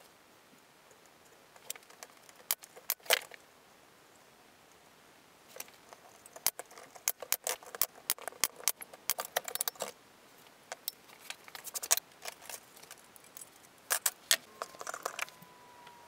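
Thin strips of old copper clinking and clattering against each other and the bench as they are handled and laid out, in irregular bunches of sharp metallic clicks with a few louder snaps.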